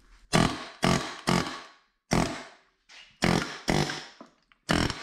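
Hammer striking a steel wedge chisel, about seven sharp blows with short ringing decays and a brief pause in the middle: chiseling the rivet heads off a riveted ball joint in a suspension control arm.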